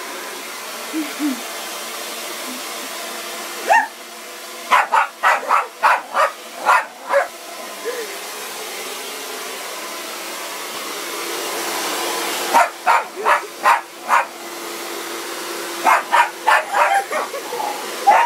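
Hair dryer running with a steady rushing noise while a dog barks at it in quick volleys, several barks a second, three times over. There are also a couple of short whines about a second in.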